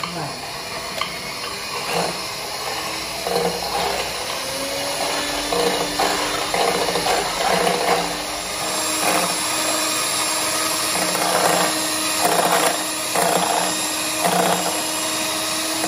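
Electric hand mixer running steadily, its wire beaters whipping chilled cream in a glass bowl, with frequent short knocks. The cream is being beaten toward whipped cream.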